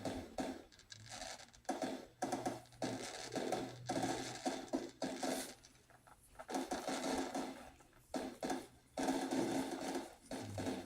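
Recorded fireworks played back through a speaker at moderate volume: irregular bursts of crackling and rumbling, each up to about a second and a half long, with short gaps between them.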